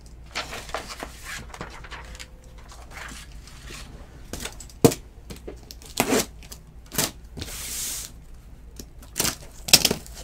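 A cardboard shipping case being handled and opened: a run of sharp knocks and clicks against the box, with a longer tearing sound a little past the middle as the packing tape is torn open.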